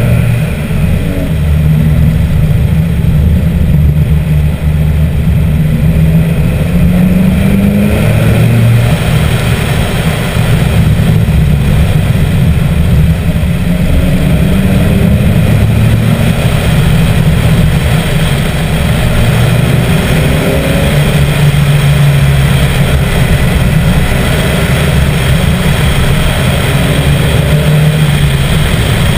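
Vauxhall VX220 Turbo's turbocharged 2.0-litre four-cylinder engine running under way, its pitch rising and falling as the car accelerates and eases off. Heard from the open cockpit through a GoPro HD Hero 2's internal microphone.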